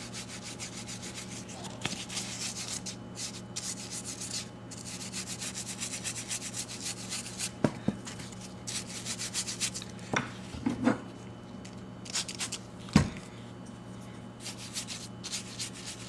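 A soft natural-bristle brush scrubbing lathered leather cleaner into a leather shift boot: a fast, steady scratchy brushing. A few short knocks from handling break in, the sharpest about three-quarters of the way through.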